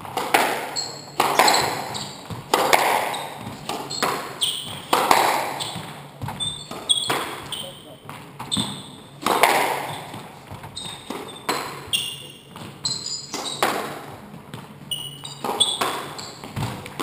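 Squash rally: the rubber ball is struck by rackets and slams off the court walls about once a second, each hit ringing in the enclosed court, with short high shoe squeaks on the wooden floor in between.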